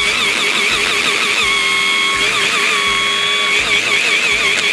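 Electric hand blender's motor running in its chopper bowl attachment, blending crushed caramelised biscuits with melted butter. A steady, loud whine whose pitch wobbles up and down in several stretches.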